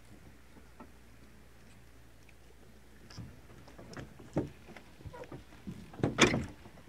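Scattered knocks and thumps on a wooden floating dock, like footsteps and bumps on the planks, starting about three seconds in; the loudest is a heavy thump about six seconds in.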